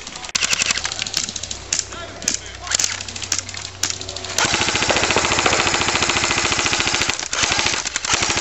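Airsoft guns firing: scattered single shots at first, then from about four seconds in a sustained, rapid full-auto burst from an electric airsoft rifle.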